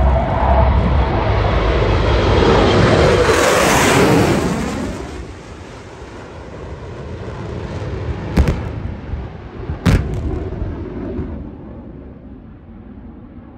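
Formation of military jets passing overhead: the jet roar builds to a peak about four seconds in, then fades. Later come two sharp bangs about a second and a half apart, typical of airshow pyrotechnic blasts, followed by a rumble that dies away.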